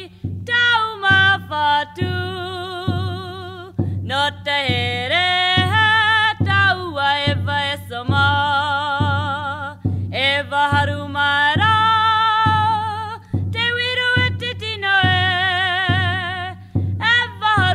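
Background song: a voice singing long, wavering notes over a steady beat.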